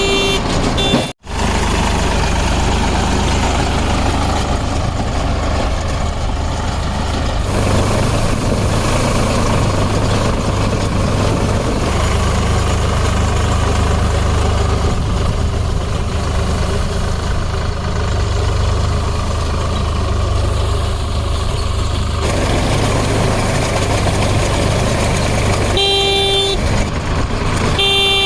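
Solis 4515 4WD tractor engine running steadily under load as it drives a Bull Agro baler. Short horn-like toots sound at the start, twice more near the end, and the sound cuts out briefly about a second in.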